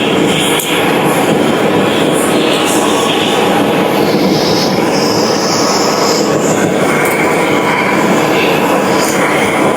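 Loud, steady machine noise with high squealing tones that come and go.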